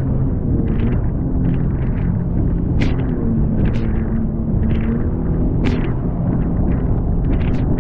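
Jet ski engine running at speed, its pitch shifting up and down as the craft bounces over choppy sea. Spray splashes sharply against the hull several times.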